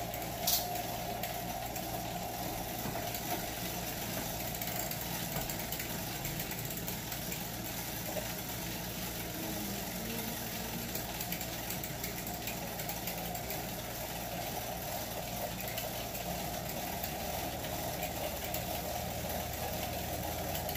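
Steady city street traffic noise with car engines running, heard while riding along on a bicycle. A brief sharp click comes about half a second in.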